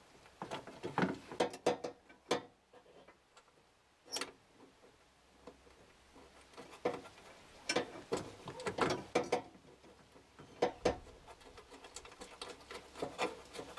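Irregular metallic clicks and knocks as a new electric window regulator is shifted around against the inner sheet metal of a pickup door to line up its mounting holes.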